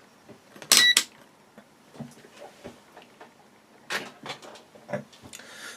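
A loud click with a short high-pitched beep about a second in, then scattered light knocks and clicks of things being handled on a bench.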